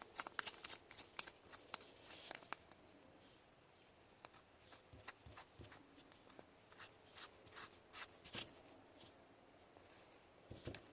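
Faint, irregular clicks and light scraping from hands handling the small plastic housing of a Leupold LTO Tracker thermal viewer, as its battery lock ring is screwed back on. The clicks are busiest in the first couple of seconds and again in a cluster near the end.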